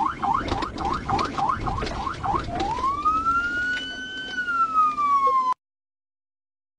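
Police car siren on the yelp setting, rapid rising sweeps about four a second, switching about two and a half seconds in to a slow wail that rises, holds and starts to fall, over the patrol car's road noise. All sound cuts off suddenly a little over five seconds in.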